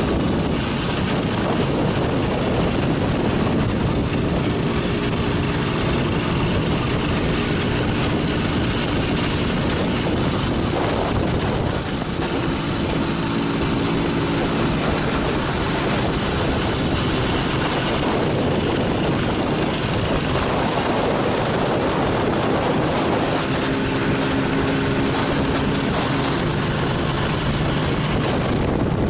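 Motorcycle engine running at a steady road speed, heard under heavy wind rush on the microphone; the engine note comes through more clearly at times.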